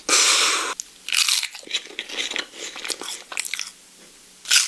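Close-up crunching and chewing of crisp food: a loud crunch at the start, then a run of shorter, softer crunches. It goes quiet for a moment and ends with another loud crunch.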